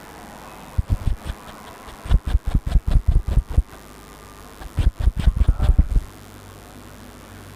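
Three runs of rapid low thumps, about eight a second, the middle run the longest: percussive massage strokes on the body.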